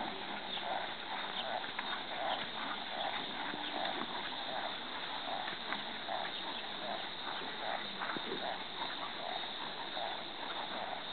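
A brown Quarter Horse mare's hoofbeats on soft arena dirt under a rider, in an even rhythm of about two a second.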